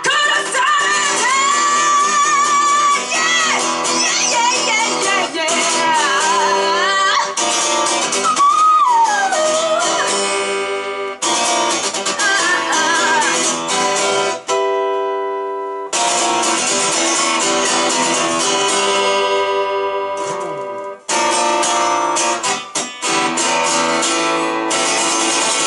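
A rock band playing live, with guitar and a wavering lead melody over held chords. About fifteen seconds in, the band briefly thins to a single held chord before coming back in full.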